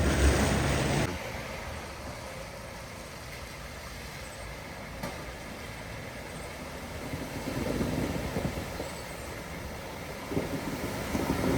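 Vehicles driving through floodwater: engine noise and the rush of water. A loud passage with a steady low engine hum cuts off about a second in. After that, quieter running noise swells twice as more vehicles come through, the second time near the end.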